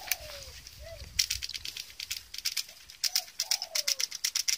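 A dove cooing: short low notes, two of them gliding downward. Over it, a spoon clinks rapidly and unevenly against a glass as coffee is stirred.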